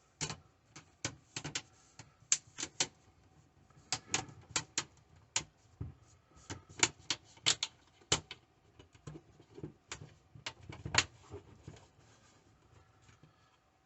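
Plastic snap clips of a Samsung Chromebook's case clicking as the cover is pressed back into place: a long run of sharp, irregular clicks, sometimes several a second.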